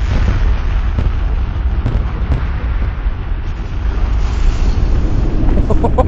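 Propane tank fireball: a loud, steady low rumble that lasts for several seconds, with no separate bangs.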